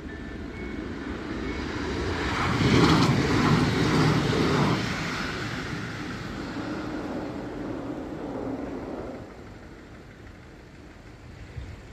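A Newag Impuls multiple-unit train passing over a level crossing: a rush of wheels on rail that swells, is loudest about three to five seconds in, and fades away by about nine seconds.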